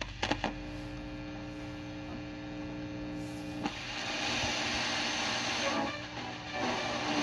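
Zenith tube radio's speaker giving a steady electrical hum after a couple of knob clicks; about three and a half seconds in a loud static hiss comes in over the hum as the set is tuned, dipping briefly about six seconds in.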